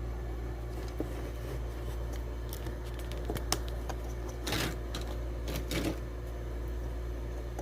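Small motorized display turntable running with a steady low hum, with a few light clicks and rustles of handling scattered through it.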